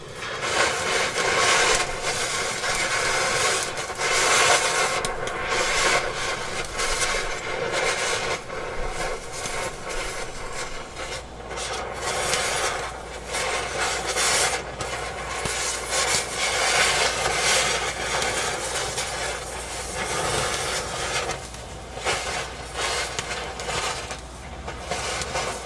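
Oxy-acetylene cutting torch hissing as it burns through the steel rivets that hold an engine mount perch to the truck frame. The hiss wavers unevenly, with a few short dips.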